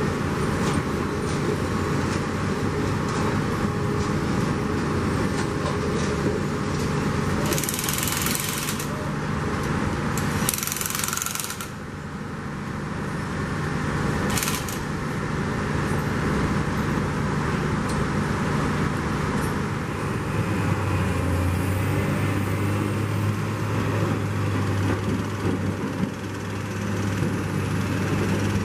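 Diesel engine of rail track-laying machinery running steadily, its note shifting lower about two-thirds of the way through. Over it, a hand-held power tool tightening rail fastening bolts sounds in three short bursts, two about a third of the way in and a brief one around the middle.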